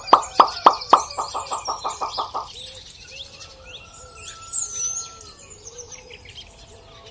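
A quick run of about a dozen short pops in the first two and a half seconds, the later ones coming faster. Small birds chirp in the background throughout.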